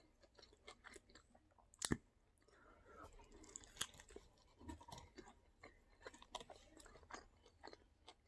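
A person biting into and chewing a burger close to the microphone: faint, irregular wet mouth noises and small clicks, with one sharp click about two seconds in.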